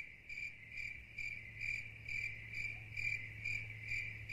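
A cricket chirping steadily in a high, even pulse, about two pulses a second, over a faint low steady hum.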